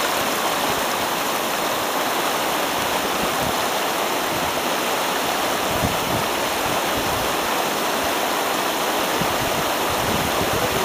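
Shallow river running over a stony riffle: a steady rushing of water.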